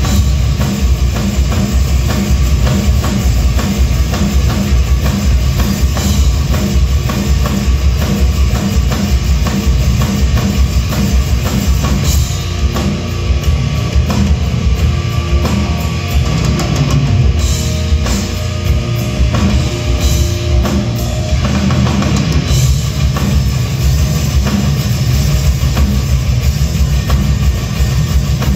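Live hard rock band playing loud through a theater PA, heard from the audience: a pounding drum kit with distorted electric guitars and bass. For about ten seconds in the middle the steady beat eases and held notes come forward.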